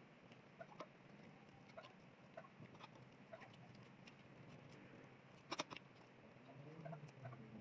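Faint eating sounds: scattered small mouth and utensil clicks as a boiled egg is bitten from a fork and noodle soup is spooned from a bowl, with a sharper double click about five and a half seconds in. A low voice-like hum starts near the end.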